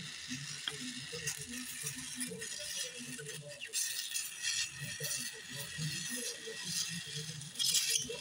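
Gas welding torch hissing steadily while a filler rod is worked against a hot aluminium thermostat housing, with a few short bursts of metal scraping about halfway through and again near the end.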